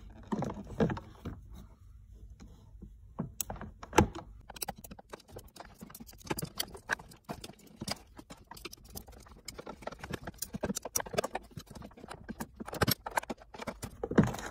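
Hands picking and peeling hot glue off a small lead-acid battery's terminal connectors in a plastic battery compartment. The wires and plastic make an irregular run of small clicks, taps and crackles, with a sharper knock about four seconds in.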